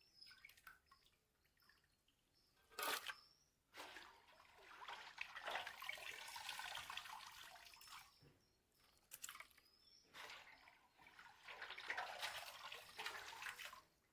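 Water dripping and splashing faintly as washed, cut catfish pieces are lifted by hand from a bowl of water and piled wet onto a steel plate, in two longer spells. There is a single sharp tap about three seconds in.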